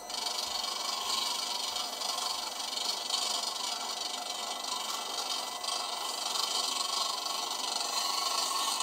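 Texture analyser running as its probe is driven down onto a 3D-printed food cube to crush it in a compression test: a steady mechanical whir with a faint rattle.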